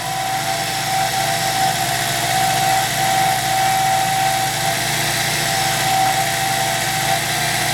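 Cue-repair lathe running steadily with a constant whine while a cutting tool faces off the end of the tenon, taking set epoxy off the end of the ferrule.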